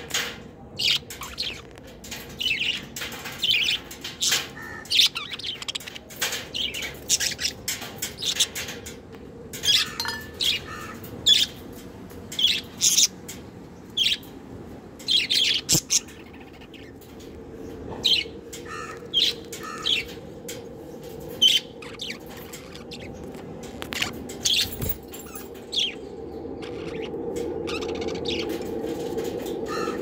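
Budgerigars chirping and chattering close up: many short, high calls in quick, irregular succession.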